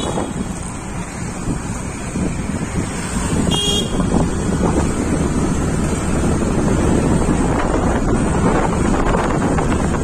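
Wind buffeting the microphone over the engine and tyre noise of a moving motorbike ride, growing louder as it picks up speed about three seconds in. A short vehicle horn toots about three and a half seconds in.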